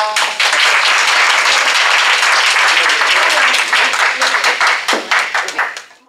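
A last plucked shamisen note rings briefly, then a small audience applauds. The clapping thins to scattered separate claps from about five seconds in and stops just before the end.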